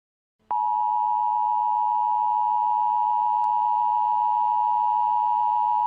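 Emergency Alert System attention tone: a steady electronic alarm tone that switches on abruptly about half a second in, out of silence, and holds without a break. It signals that an emergency alert message is about to be read.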